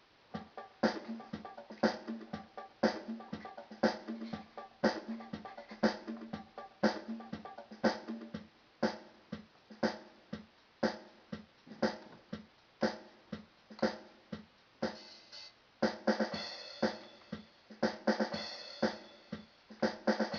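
Electronic keyboard's built-in drum-machine rhythm playing a steady beat, a strong hit about once a second with lighter hits between. It grows busier, with more pitched notes, in the last few seconds.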